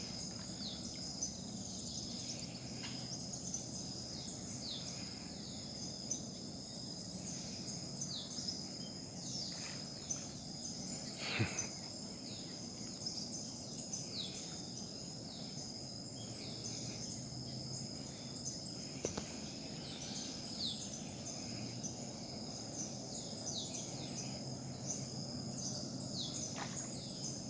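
Outdoor waterside ambience: insects droning steadily at a high pitch, with many short falling chirps scattered through and a low steady rumble underneath. One sharp click stands out about eleven seconds in.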